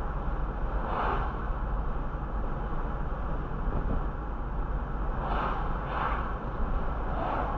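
Car road noise heard from inside the cabin at about 28 mph: a steady low rumble of engine and tyres, with oncoming cars whooshing past several times.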